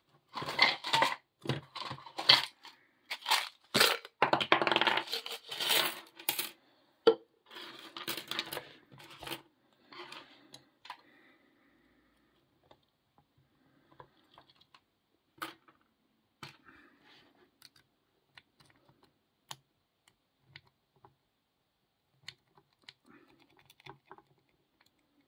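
Lock pick and tension wrench working in the keyway of a Rocky padlock, giving small metallic clicks and scrapes. They come thick and fast for about the first ten seconds, then thin out to scattered faint clicks.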